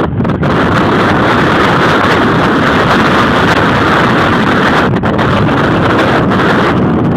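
Loud, steady rushing wind on the microphone, with a brief dip about five seconds in.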